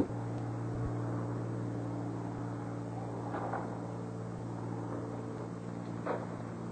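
Go-kart's small engine starting up with a sharp bang and then running at a steady idle.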